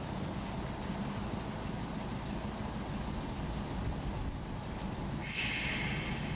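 Small red shunting locomotive moving slowly along the station track with a steady low rumble. A short burst of hissing comes in about five seconds in.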